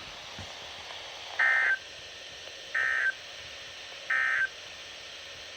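EAS end-of-message signal: three short bursts of buzzing digital data tones, evenly spaced about 1.3 seconds apart, marking the end of a weather warning broadcast.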